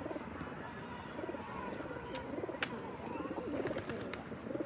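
Domestic pigeons of the Peshawar breed cooing, a run of low wavering coos one after another, with a single sharp click about two and a half seconds in.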